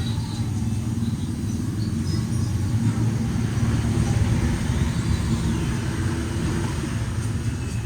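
A motor vehicle engine running steadily, a continuous low rumble.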